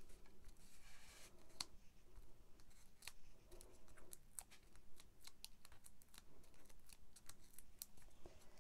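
Faint, scattered crisp clicks and rustles of paper and card being handled: small foam adhesive dimensionals are peeled off their backing sheet and pressed onto a die-cut cardstock circle.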